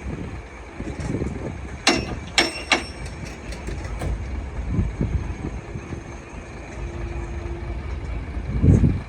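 Heavy diesel earthmoving machinery running with a low rumble, three sharp metallic clanks about two seconds in, and a loud low surge near the end.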